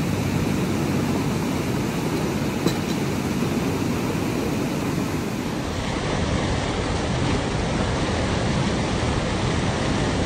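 Fast-flowing river rushing steadily over rocks as white water, with one short light click a little under three seconds in.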